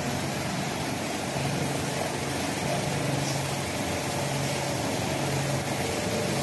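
Fully automatic blanket hemming machine running: steady machinery hiss with a low motor hum that comes and goes every second or so.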